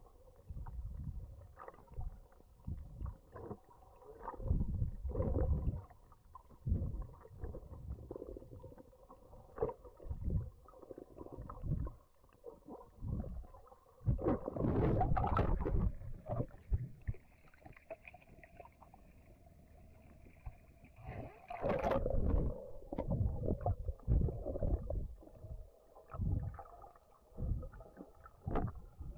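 Muffled underwater sound picked up by a submerged camera while swimming over the reef: uneven low water surges and sloshes about once a second, over a faint steady hum. Louder bubbly splashes come about halfway through and again about three-quarters of the way in.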